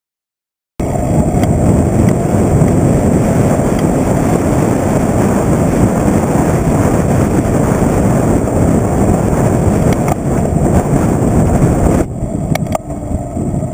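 Heavy wind buffeting on a bicycle-mounted GoPro Hero2's microphone while riding: a loud, low, rumbling noise that cuts in suddenly about a second in. Near the end it drops off sharply, with a few short clicks.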